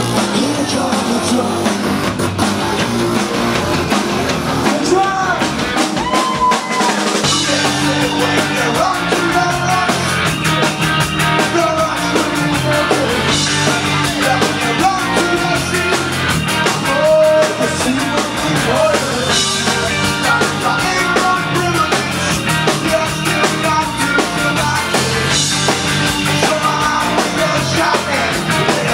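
Punk rock band playing live through a club PA: drum kit, distorted electric guitars, bass and a singer's vocals. The bass and kick drop out for about a second, around six seconds in, before the full band comes crashing back in.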